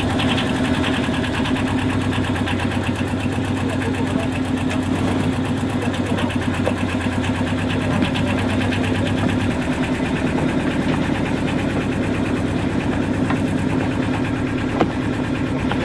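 Sailboat's inboard engine running steadily just after starting, with a fast, even mechanical beat. Its low tone changes about nine seconds in.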